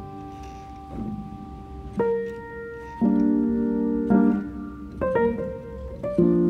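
Background piano music: notes and chords struck about once a second, each ringing on before the next.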